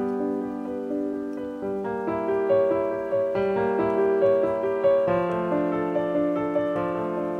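Background piano music: struck notes and chords in a gentle, flowing melody.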